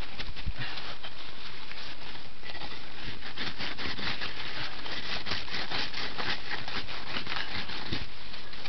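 Snow crunching and scraping in a dense, irregular run of small clicks as a snow block is worked down into place as the igloo's key block, grinding against the blocks around it.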